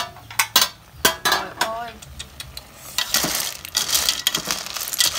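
Metal pot lid clanking in a few sharp knocks as it is handled, then snail shells clattering and clicking against each other and the aluminium pot as they are stirred with chopsticks.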